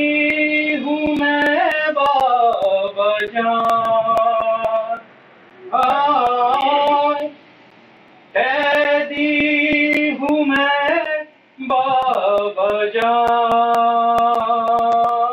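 A man's voice chanting mournful verses in a slow, drawn-out melody, holding long notes across four phrases with short pauses for breath between them.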